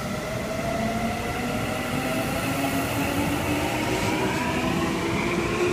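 Electric train running through the station: a motor whine of several tones rising slowly in pitch as it gathers speed, over a steady rail rumble.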